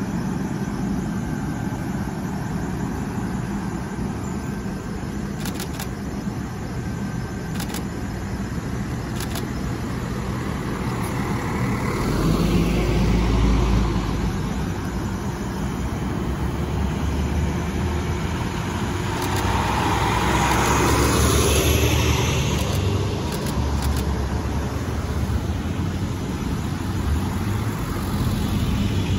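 Cars and a police cruiser driving slowly past one after another, their engine and tyre noise over a steady low rumble. The sound swells as vehicles pass close, about twelve seconds in and again around twenty seconds.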